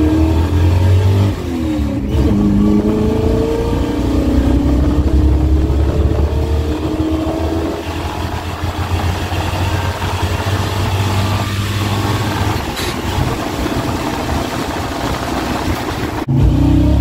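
383 stroker small-block Chevy V8 in a Chevy dually pickup at full throttle, heard from inside the cab. About a second in there is a gear change, then the engine winds up in the next gear for a few seconds before settling into a steadier, slightly quieter run. Near the end it jumps suddenly back to a loud full-throttle pull.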